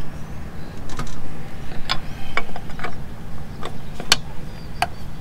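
Sharp metallic ticks and light scraping from a lug nut being spun by hand onto a car wheel stud, about seven clicks at uneven spacing.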